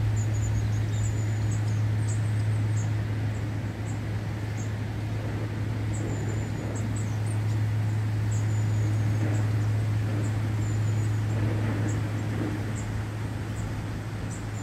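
A steady low hum, with small birds' short, high chirps coming and going above it.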